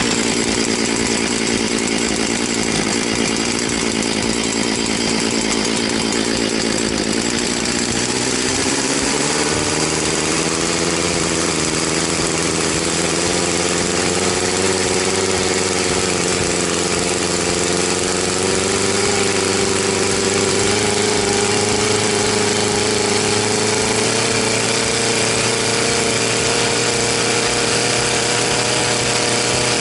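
Echo CS-670 two-stroke chainsaw running steadily. The engine speed climbs about eight seconds in, then holds higher with a slight waver.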